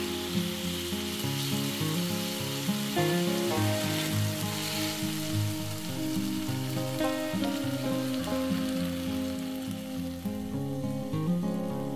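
Grated raw potato frying in oil in a pan, a steady sizzle that thins out near the end, with background music.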